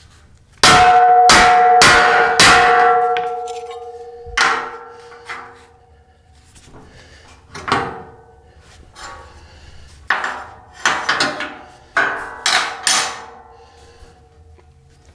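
Hammer striking steel on the jig, with the metal ringing after each blow. About a dozen strikes: four heavy ones in quick succession near the start, then lighter, spaced taps and a cluster of blows later on.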